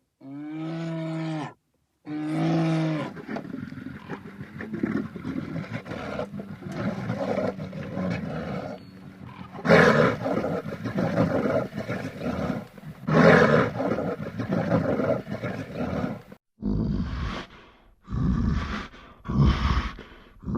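Amur tiger calls in a series of separate clips. Near the start are short calls with a clear held pitch, then long rough roaring through the middle, then several short deep grunts near the end.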